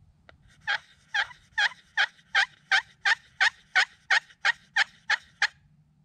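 Turkey slate pot call scratched with a wooden striker, giving a steady run of about fourteen sharp yelps, roughly three a second, imitating a hen turkey. A faint click comes just before the first yelp.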